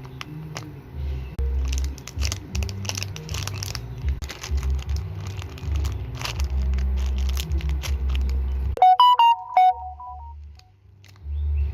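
Background music with a heavy, pulsing bass and many small clicks and crinkles over it. About nine seconds in the bass drops out and a short run of electronic beeps plays before the music returns.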